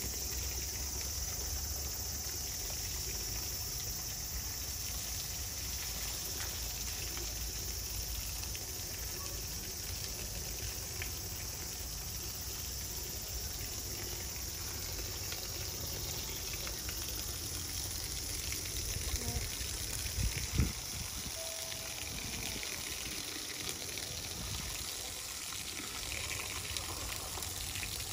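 Steady hiss and splatter of a hose jet spraying water onto an elephant's head and trunk. A brief low thump about two-thirds of the way through.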